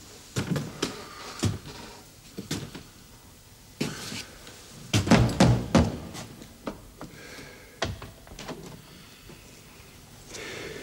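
Knocking with a fist on a wooden door, in several irregular groups of knocks with pauses between them.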